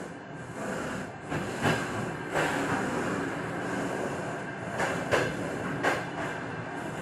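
Moving train: the wheelsets knock over rail joints, several sharp knocks at uneven spacing above a steady running rumble.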